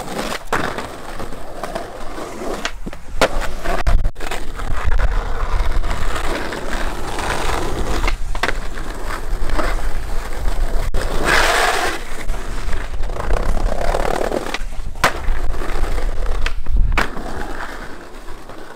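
Skateboard wheels rolling over rough street asphalt with a steady gritty rumble, broken by several sharp clacks of the board on the pavement.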